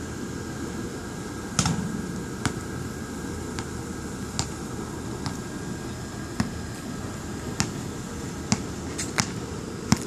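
Basketball bouncing on a hard outdoor court: about ten sharp, irregularly spaced thumps over a steady low background rumble.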